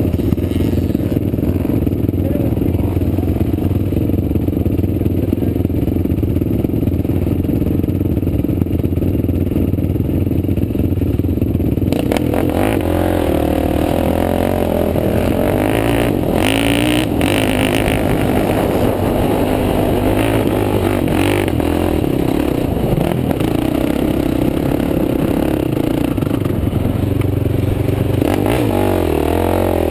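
Sport quad ATV engine idling steadily, then about twelve seconds in revving and running under load as it rides across sand, its pitch rising and falling with the throttle.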